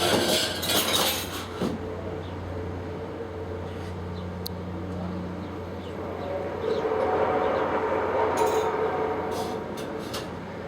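An unexplained drawn-out, horn-like tone with several pitches swells up about six seconds in and fades after about four seconds, over a steady low hum. A loud noisy rush comes right at the start.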